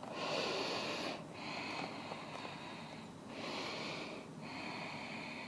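A woman breathing slowly and deeply during a held yoga pose: about four breath sounds, alternating in and out, each a second or more long with short pauses between.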